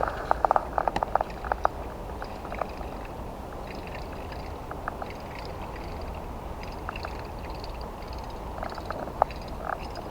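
Frogs calling with many short, repeated chirps. A quick run of loud clicks sounds in the first couple of seconds.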